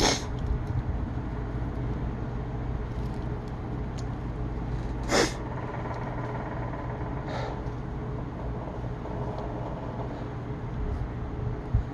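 A person sneezing during a sneezing fit: a short burst right at the start and a stronger sneeze about five seconds in, over a steady low rumble.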